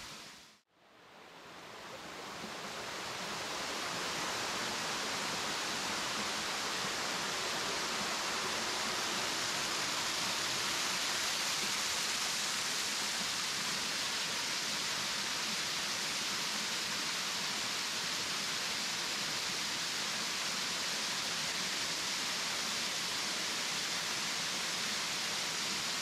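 Steady rushing of a small waterfall cascading over rocks, rising in over the first few seconds and then holding even.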